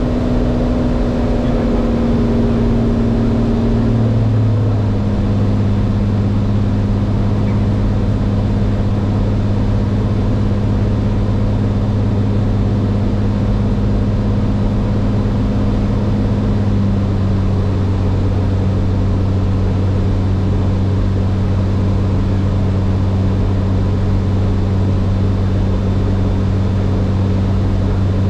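Cirrus SR20's piston engine and propeller running steadily, heard inside the cockpit as a loud, even drone. The drone drops in pitch twice, once about four seconds in and again about seventeen seconds in.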